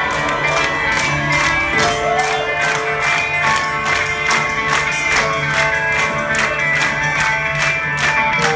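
Live rock band playing amplified on stage: electric guitars, drums and keyboard, with drum strikes keeping a steady beat under held notes.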